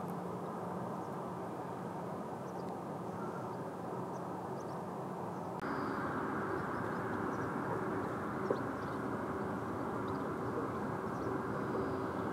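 Steady outdoor rumble with a low, even machine-like hum. About halfway through it steps up suddenly to a louder, brighter hiss. A few faint high chirps, like small birds, come through now and then.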